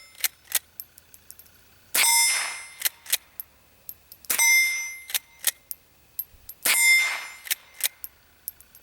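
Three shots from a Savage Model 29 pump-action .22 rifle, about two seconds apart. Each shot is met at once by a metallic ring that fades over about a second. Between shots come a pair of smaller clicks as the pump action is worked.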